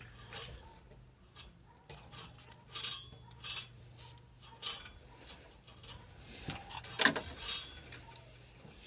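Small metal parts clicking and clinking as they are handled during a repair, with the sharpest click about seven seconds in, over a faint steady hum.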